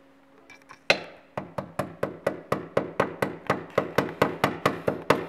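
A small nail being driven to fasten a cable to wood, struck with pliers in place of a hammer: one sharp blow about a second in, then a fast, even run of sharp metal knocks, about five a second.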